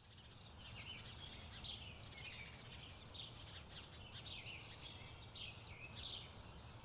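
Small birds chirping, a rapid run of short, downward-sweeping chirps over a faint low rumble.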